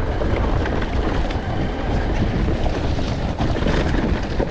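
Enduro motorcycle being ridden off-road, heard from an onboard camera: a steady rush of wind on the microphone over the running engine, with a few light knocks.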